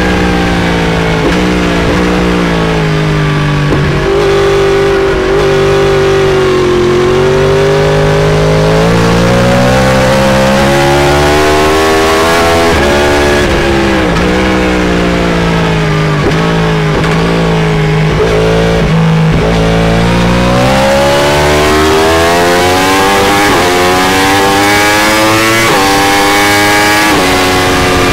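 Yamaha R1M's crossplane inline-four through an Akrapovic exhaust, ridden hard on a race track. The engine note drops on the brakes and downshifts, holds steady mid-corner, then climbs under acceleration, rising in steps with short dips at each upshift near the end.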